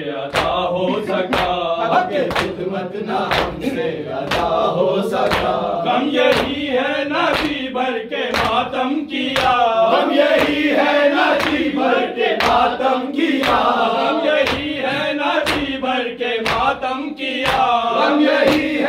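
Men chanting an Urdu noha of farewell to Imam Hussain in unison while beating their chests with open hands in time, sharp slaps landing about twice a second.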